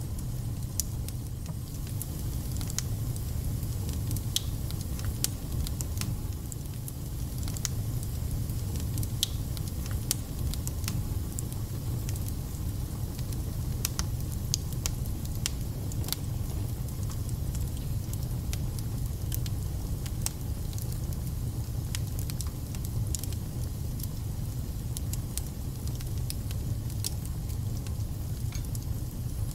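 Wood fire burning in a fireplace: a steady low rumble with frequent sharp crackles and pops.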